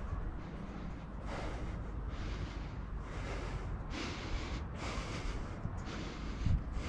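Hard breathing of a person climbing steep steel stairs, about one breath a second, over a steady low rumble of wind on the microphone.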